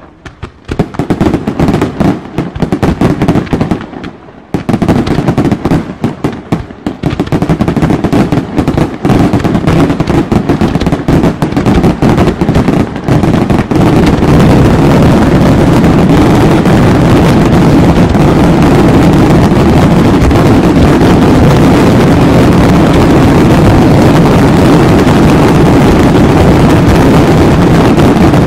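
Fireworks display: rapid bangs and crackling shell bursts, which about halfway through merge into a dense, unbroken barrage.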